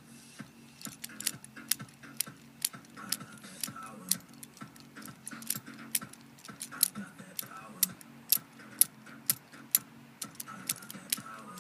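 Sharp, irregular clicks, about three a second, over background music.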